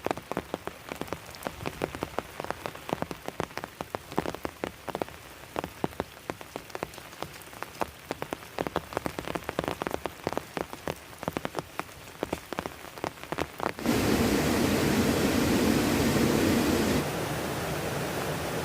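Heavy rain, its drops striking a hard surface close by as dense, irregular sharp ticks over a steady hiss. About fourteen seconds in, it cuts abruptly to a louder, even rushing noise, which drops to a lower level about three seconds later.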